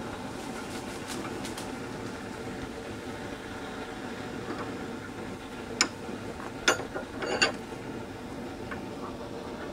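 Blowtorch flame burning steadily while it heats steel studding clamped in a vice to red heat for bending. About six seconds in come three sharp metal clanks within a second and a half as the rod is worked in the vice.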